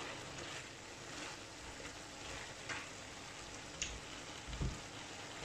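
Chicken, pineapple chunks and vegetables sizzling in a stainless steel pan as a plastic spatula stirs them, with a few short knocks and scrapes of the spatula against the pan and a low thump about four and a half seconds in.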